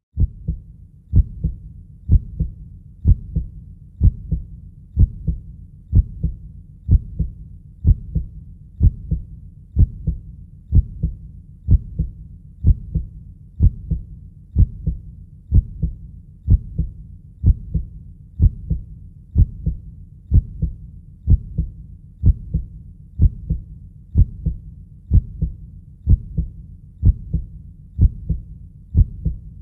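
Heartbeat sound: a slow, steady, deep lub-dub, each beat a double thump, about once a second.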